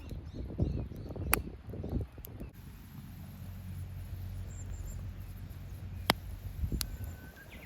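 Wood campfire crackling with a few sharp isolated pops over a low steady rumble, with dull knocks and rustling in the first two seconds.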